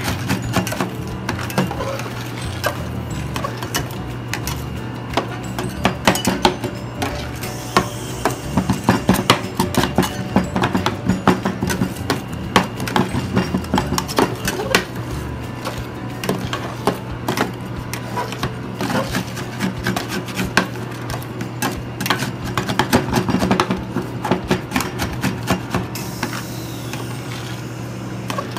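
Metal spatulas repeatedly chopping and scraping fruit and yogurt on the cold plate of a fried-yogurt machine: quick, irregular tapping and scraping that comes in busier stretches, over a steady low hum.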